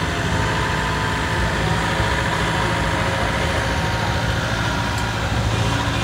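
Caterpillar CW34 pneumatic-tyred road roller's diesel engine running steadily as the roller rolls over fresh asphalt. It is a constant low engine hum with a thin steady tone above it.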